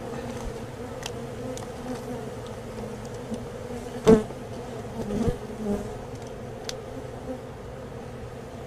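A crowd of honey bees buzzing steadily in a low hum, disturbed as their comb is cut out and moved. A single sharp knock sounds about four seconds in, followed by a few louder buzzes passing close by.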